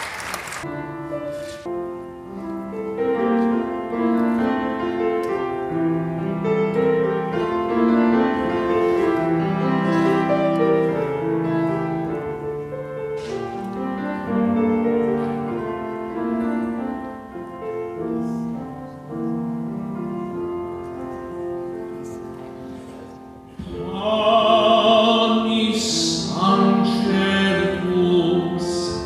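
Grand piano playing a slow hymn introduction in chords and melody. About 24 seconds in, a man's voice comes in through a microphone, singing with vibrato over the piano.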